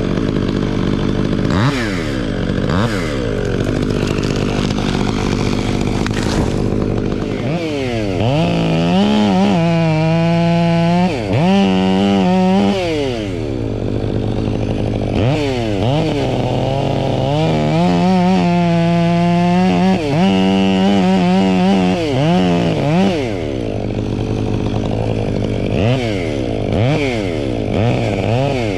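Two-stroke chainsaw revving up and down with quick throttle blips, held at high speed through two long cuts, about eight and seventeen seconds in. A steady low hum runs underneath.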